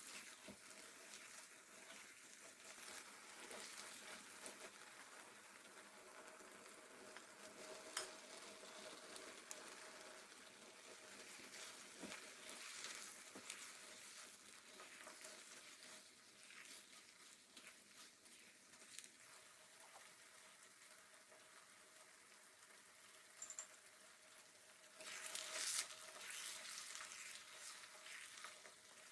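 Faint steady sizzling and crackling of food frying in a pan, with a few sharp clicks. There is a louder stretch of crackling near the end.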